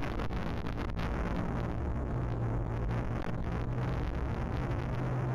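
A motor running steadily under wind noise on the microphone, its hum settling slightly lower in pitch about two seconds in.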